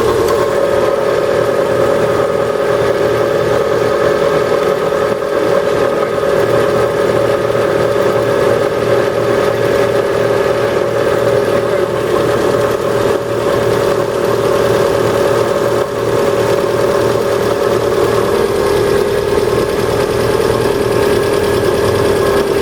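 Lada Priora's 1.6-litre 16-valve VAZ-21126 engine idling steadily with a ticking knock from the top of the engine, which the owner takes for the hydraulic lifters rather than the pistons while the engine is still cold.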